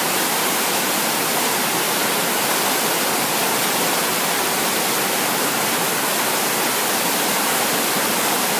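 River rapids rushing over rocks: a steady, even white-water rush.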